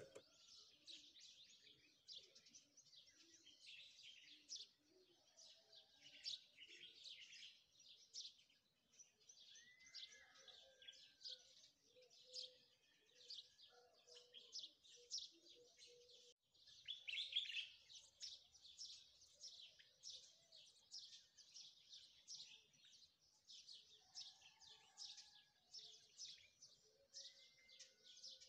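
Faint birdsong: a steady stream of short, high chirps from small birds, several a second, with an occasional lower whistled glide.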